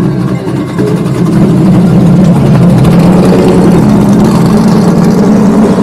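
Car engine running loud and close with a deep, steady rumble, growing louder about a second and a half in and then holding.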